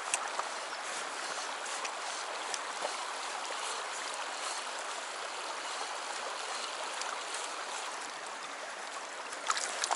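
Shallow stream running over cobbles, a steady rush of water, with a few light clicks and a short cluster of louder clicks near the end.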